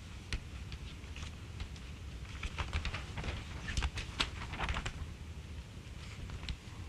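Sheets of paper being handled and leafed through at a microphone: a cluster of crackles and light clicks in the middle, over a low steady room hum.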